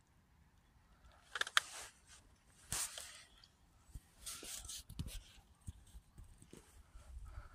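A few short bursts of rustling noise, each a fraction of a second long, with some faint low thumps.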